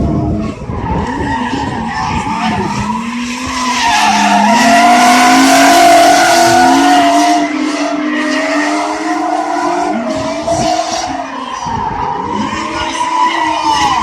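Drift car's engine revving hard, its pitch rising and falling, with its tyres squealing through a slide. It is loudest about four to seven seconds in.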